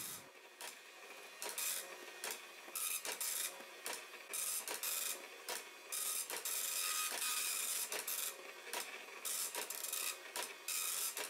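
Dot matrix printer printing on continuous tractor-feed paper: the print head rasps across the page in repeated short bursts, one pass per line, with brief pauses between lines.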